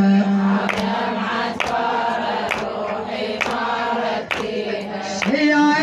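A group of women's voices chanting a Shia lament refrain together, with a sharp slap about once a second in the steady rhythm of chest-beating (latm). A held sung note ends just at the start.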